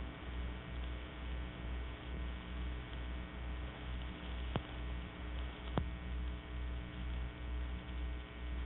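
Steady electrical mains hum in the background of an old recording, with a low throb pulsing a few times a second. Two faint clicks about a second apart near the middle.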